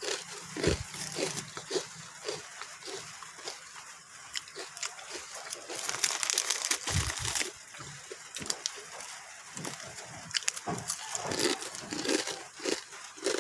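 A person chewing a crunchy snack close to the microphone, with repeated crunching and wet mouth noises at about two chews a second.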